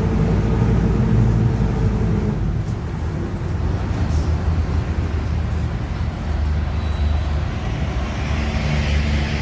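Mercedes-Benz OF-1721 BlueTec5 city bus driving, its engine humming steadily with the differential droning (roncando). A higher steady whining tone fades out about two seconds in.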